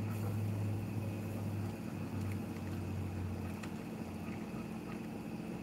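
A steady low hum, easing off about two-thirds of the way through, with a few faint light clicks of a whisk working a cream sauce in a skillet.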